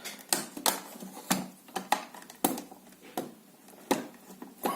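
Irregular sharp clicks and light knocks of hard plastic, about a dozen, as a hard drive and its docking station are handled.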